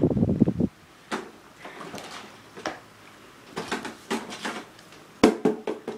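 A low rushing noise cuts off under a second in, followed by scattered light clicks, clinks and knocks of small objects being handled and set down on a wooden dresser top, with one sharper knock about five seconds in.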